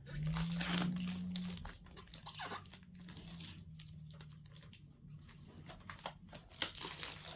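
Plastic packaging film crinkling and tearing as it is handled and peeled off the parts of a new vacuum cleaner, in irregular rustles that are loudest in the first second and a half. A sharp click about six and a half seconds in.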